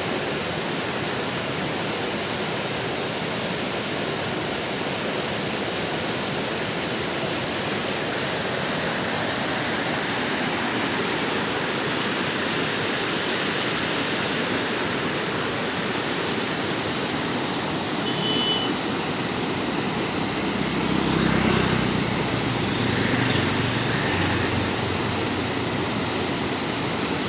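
Running water: a steady, even rushing hiss. About two-thirds of the way through there are a few short high tones, and shortly after, a low rumble swells and fades.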